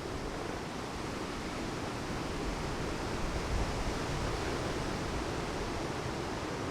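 Steady hiss of a wind-and-rain squall, with a stronger low gust buffeting the microphone about three and a half seconds in.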